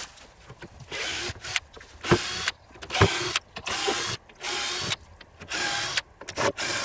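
Cordless drill-driver run in about seven short bursts, backing screws out of the hut's wooden boards.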